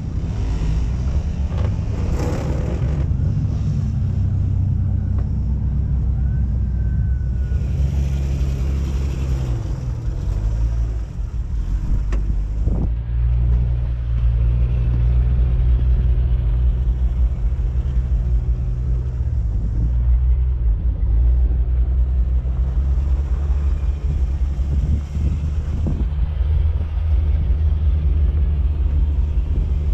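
Off-road Jeep engine running at low revs, a steady low rumble whose pitch dips and picks up again twice as the throttle changes while crawling over sand and rock.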